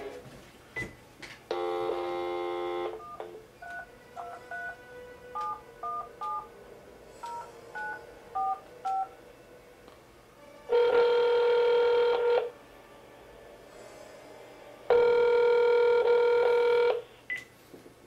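A telephone call being placed: a dial tone, then a quick run of touch-tone (DTMF) beeps as a number is keyed in, then the ringback tone sounding twice, each ring about two seconds long.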